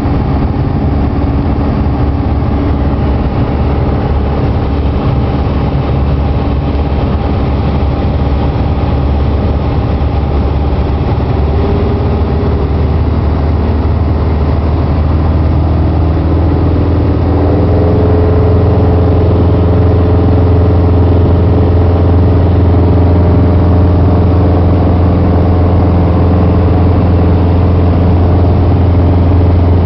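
Piper PA-28-140's four-cylinder Lycoming O-320 engine and propeller running steadily, heard from inside the cabin. About halfway through the pitch rises and it gets louder as power is added for the go-around, then holds at the higher setting.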